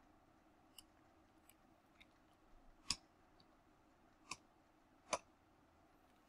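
Separate computer keyboard keystrokes against near silence: about half a dozen single key clicks, the clearest three near the middle and toward the end.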